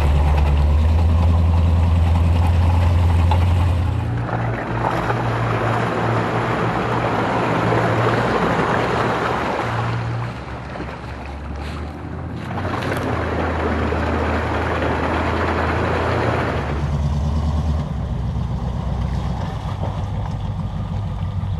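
A 4x4's engine running steadily as it drives a wet, muddy trail, with two stretches of splashing and tyre noise of several seconds each, the first starting about four seconds in.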